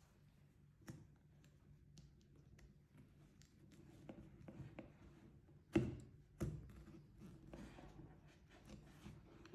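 Quiet handling of a cardboard headphone box while a knife blade cuts and scrapes at its seal tab: small clicks, taps and scratching, with two louder knocks about six seconds in.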